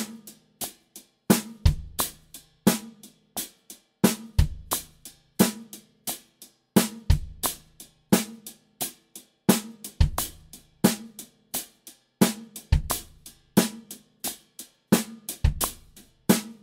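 Drum kit playing a repeating funk groove. Steady accented eighth notes ring on the hi-hat and a snare backbeat falls on two and four, while the bass drum lands on a syncopated sixteenth-note spot in each bar.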